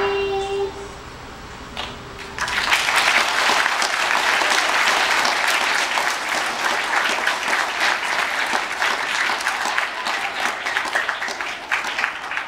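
A children's choir's final held note dies away within the first second; after a short pause an audience bursts into applause about two seconds in and keeps clapping, thinning slightly near the end.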